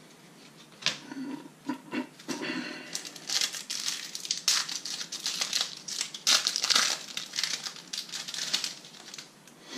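Foil wrapper of a Panini FIFA 365 Adrenalyn XL booster pack crinkling and tearing as it is ripped open by hand. A few light clicks and rustles come first, then a dense crackle from about three seconds in.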